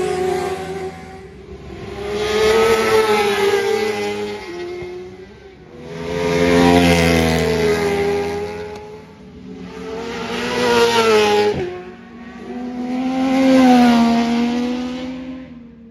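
Racing motorcycles speed past one after another, about four passes. Each engine note swells loud as the bike approaches and fades as it goes by, its pitch bending down.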